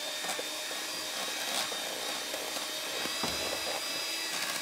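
Electric hand mixer running steadily, its beaters whipping cream in a metal bowl, with a few clicks of the beaters against the bowl and a duller knock about three seconds in. The cream is being churned to the point of breaking into butter.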